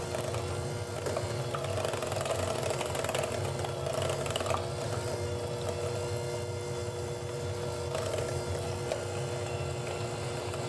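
Electric hand mixer running steadily, its beaters whipping boiled potatoes with butter and heavy cream into mashed potatoes; a steady motor whine over a low hum.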